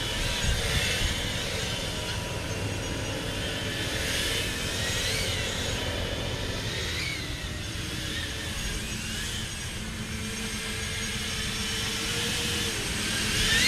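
FPV quadcopter spinning doubled-up HQProp 3.5-inch eight-blade props, 64 blades in all, in flight: a turbine-like whine that rises and falls in pitch again and again as the throttle changes. A steady low engine drone from lawnmowers runs beneath it.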